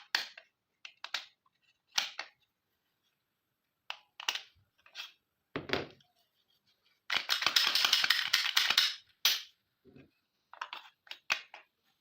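Glock pistol parts being handled: a series of separate sharp clicks and clacks, with a rapid rattle of clicks lasting about two seconds a little past the middle.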